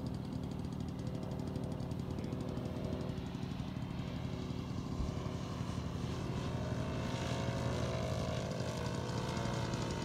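Engine and propeller of a radio-controlled Extra 300 aerobatic model plane running in flight, a steady drone whose pitch rises about six seconds in and then wavers.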